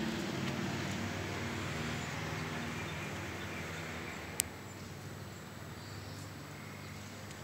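Bumblebee buzzing at lavender flowers, a low steady hum that fades away about four and a half seconds in, over a constant wash of traffic noise. A single sharp click sounds near the same point.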